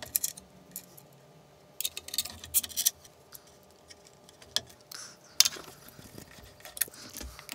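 Scattered light clicks and taps of hands handling parts and tools: a short cluster about two seconds in and a sharper knock about five and a half seconds in.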